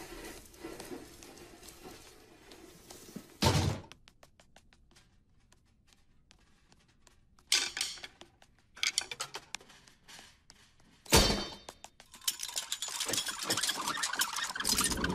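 Drums being shifted about: a heavy thump, scattered knocks, and a second heavy thump, followed by a long dense metallic clatter of a heap of chrome drum stands being dragged.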